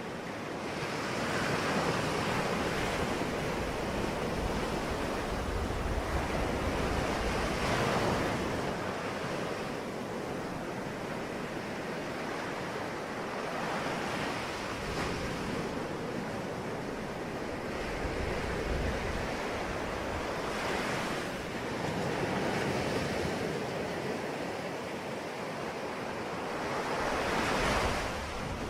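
Ocean waves breaking and washing on the shore in a continuous hiss of surf, swelling and easing every six or seven seconds as each wave comes in.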